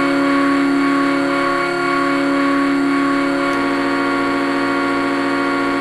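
Steam locomotive whistle blowing one long, steady chord of several notes, its lowest notes shifting about three and a half seconds in.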